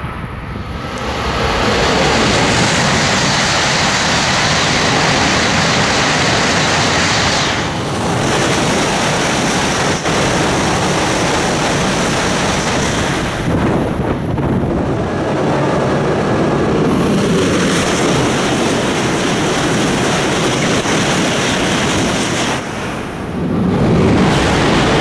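Tohoku Shinkansen bullet trains, E5 series sets and an E5/E6 coupled set, passing through a station at high speed: a loud, steady rush of air and rolling noise. It swells about a second and a half in and holds, with brief dips near 8, 14 and 23 seconds between passes.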